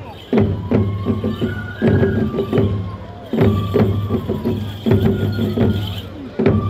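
Traditional Japanese tiger-dance (toramai) accompaniment: taiko drum strokes under held, sliding bamboo-flute notes, in a phrase that comes round about every second and a half.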